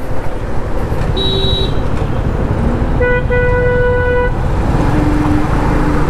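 Vehicle horns honking in city traffic over the steady rumble of a Suzuki Gixxer 250 motorcycle's engine and road noise. A short high beep comes about a second in. A louder horn starts around three seconds in, breaks briefly, then holds for about a second. A lower horn follows near the end.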